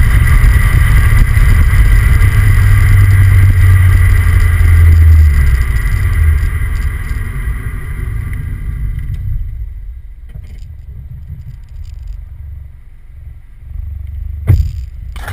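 Driving noise of a 2009 MINI John Cooper Works, its turbocharged four-cylinder exhaust and road rumble heard from a camera on the rear bumper: a loud low rumble with a thin whine that fall away over the middle to a quieter rumble. A single sharp knock comes near the end.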